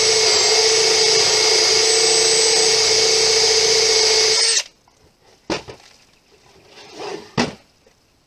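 Cordless drill running steadily at full speed as its spade bit bores through a pine board, stopping suddenly about four and a half seconds in. Two short knocks follow near the end.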